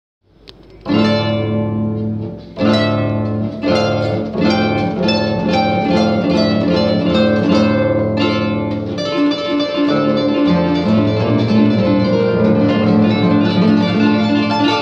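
Paraguayan harp playing a fast polka paraguaya: quick runs of plucked notes over a steady plucked bass, starting about a second in.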